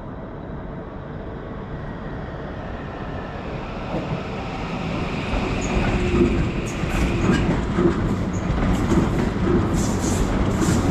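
Keikyu electric train approaching and running past, its noise growing steadily louder, with the wheels clacking over the rail joints in the second half.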